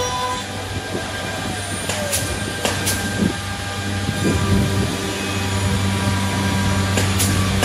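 Holztek D2400-CNC lock and hinge boring machine running: a steady electrical hum with thin motor whines that shift in pitch as the gantry head travels along the panel, and a few sharp clicks.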